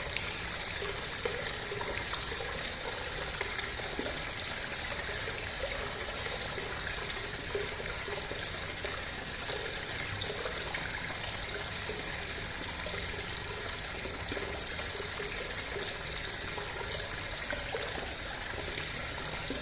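Clear river water flowing and trickling steadily, an even rush of water with small splashing flickers.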